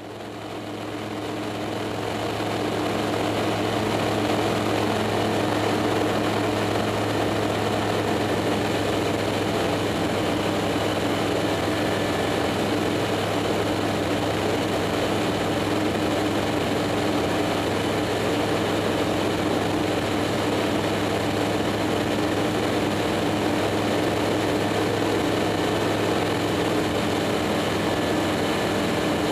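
Zenith STOL CH701 light aircraft in cruise, heard from inside the cockpit: a steady engine and propeller drone under rushing air noise. It fades up over the first few seconds, then holds an even, unchanging pitch.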